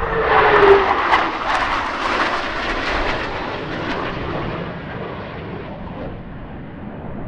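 Formation of Blue Angels F/A-18 Hornet jets flying past. The jet noise swells to its loudest just under a second in, with a whine that drops in pitch as they go by, then slowly fades away.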